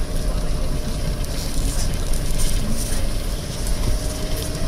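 Cabin noise inside a Toyota Coaster minibus driving downhill: a steady low engine and tyre rumble with a hiss of the wheels on the gritty road and light rattles.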